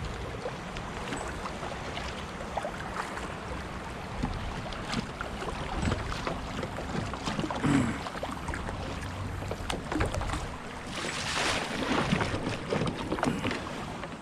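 Kayak being paddled through shallow, moving river water: irregular paddle strokes dipping and splashing, with water rippling past the plastic hull.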